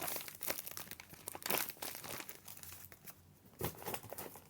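Paper crinkling and rustling in irregular bursts as a handmade paper squishy is handled.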